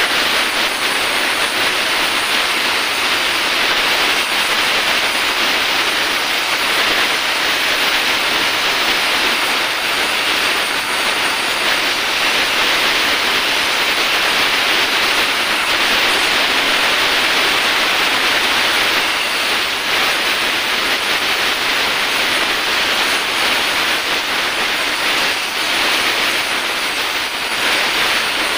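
Oxy-acetylene welding torch flame hissing steadily while it melts aluminium to fill a broken oil drain bolt hole in a motor scooter crankcase.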